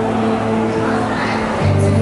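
A female singer performing live over sustained instrumental backing chords, with a deeper bass note coming in past the halfway mark.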